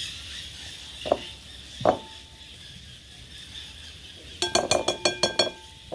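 A metal spoon knocking against a glass mixing bowl while scooped baked-potato flesh is knocked off into it: two single knocks about a second apart, then a quick run of ringing clinks near the end.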